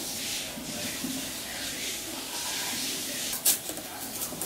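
A paper sleeve rubbing and sliding against a small metal tin as hands work it off, with one sharp click from the tin about three and a half seconds in.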